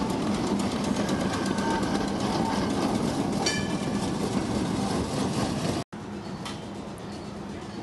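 Restored electric streetcar rolling past on its track, its wheels clattering and clicking steadily over the rails, with a brief high ringing about three and a half seconds in. The sound cuts out for an instant near the end and comes back quieter as the car moves off.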